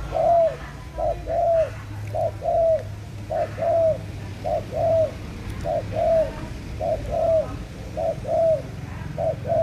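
A dove cooing in a steady two-note rhythm: a quick short note followed by a longer arched, falling note, repeated about once a second, nine times.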